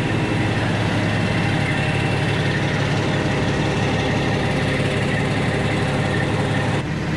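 Heavy loaded water truck's diesel engine idling steadily, its level dipping slightly near the end.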